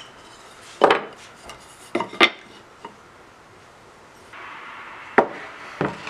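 Pieces of wood being handled on a workbench: a handful of separate wooden knocks as boards and strips are picked up and set down, over a steady background hiss that gets louder about four seconds in.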